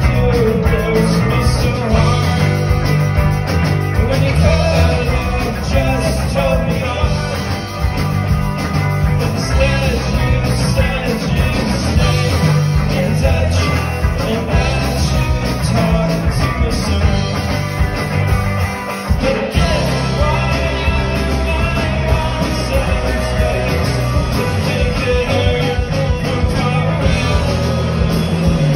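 A live rock band playing: electric guitars, bass guitar and a drum kit, loud and full throughout, heard through the PA from the audience floor.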